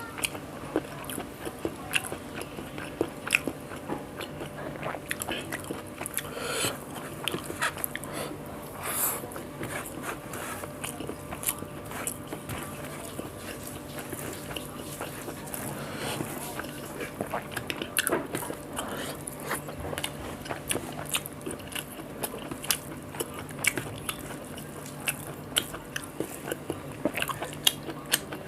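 Close-up eating sounds: a person chewing and biting a meal of rice and egg omelette with coriander chutney, with many small sharp mouth clicks and no talk.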